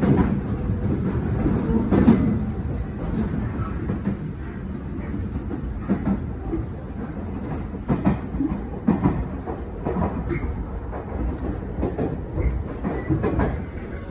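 Nankai electric train heard from inside the carriage while running: a steady low rumble of wheels on rail, with irregular clacks as the wheels cross rail joints.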